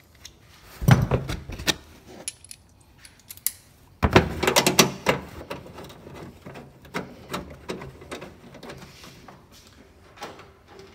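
Hand tools clicking, knocking and rattling against the metal and plastic under a car's trunk lid while a 10 mm nut holding the third brake light is taken off. There is a sharp knock about a second in, a burst of rattling knocks around four seconds, then lighter scattered ticks.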